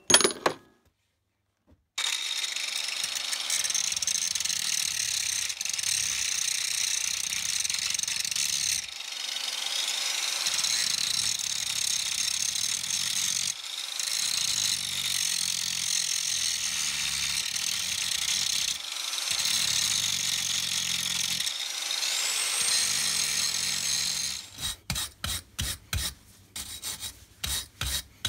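Angle grinder grinding a steel bracket held in a vise, running steadily with a few short breaks, to prepare the broken bracket for welding. Near the end it stops, and a run of quick scraping strokes, about three a second, follows.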